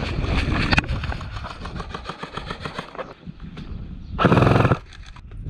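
Quick footfalls and the clatter of kit on the move. About four seconds in, a short full-auto burst of about half a second comes from a suppressed G&G UMP45 electric airsoft gun, its motor and gearbox whirring as it cycles.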